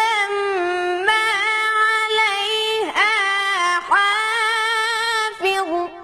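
Melodic Quran recitation: a single high voice sustains long, ornamented notes with brief breaths between phrases, then trails off with a short echo at the end.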